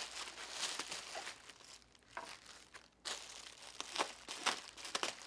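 Clear inflated air-column plastic packing wrap crinkling and crackling as it is pulled and torn off a sword, with a quieter stretch in the middle and sharper crackles after about three seconds.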